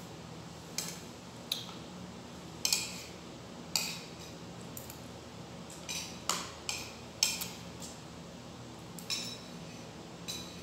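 Metal spoon clinking and scraping against a ceramic plate as rice is scooped up, about ten short, irregular clinks.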